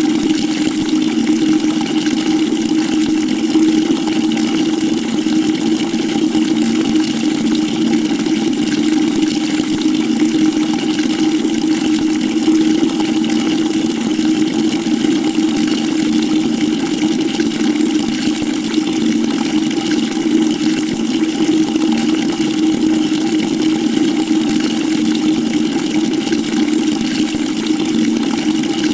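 Water pouring steadily into a bucket: a constant rushing splash with a strong, even low drone underneath.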